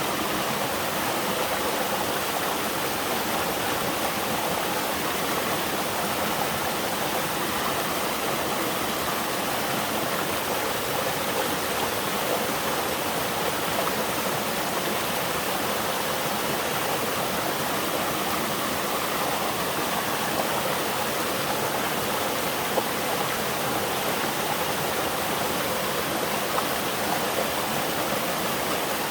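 Waterfall in a mountain valley stream, water pouring and splashing in a steady, unbroken rush.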